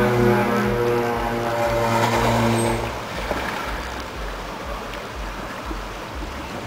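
Jeep SUV driving slowly through deep water: the engine running low under a wash of sloshing water, with low rumbling wind noise on the microphone. A steady humming tone fades out about three seconds in.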